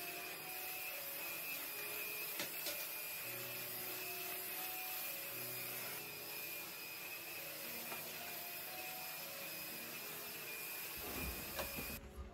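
Stick vacuum cleaner running steadily, a constant motor noise with a high whine, until it cuts off near the end.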